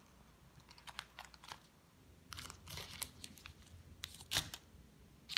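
Clear plastic candy wrappers crinkling in the hand as wrapped pieces of nougat are handled: faint scattered crackles, busiest in the middle, with a sharper one near the end.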